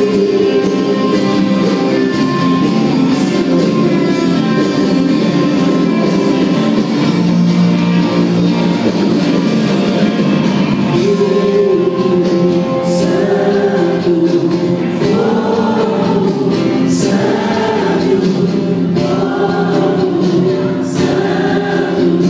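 Worship music: a band holding sustained chords, with a group of voices singing a slow melody that comes in strongly about eleven seconds in.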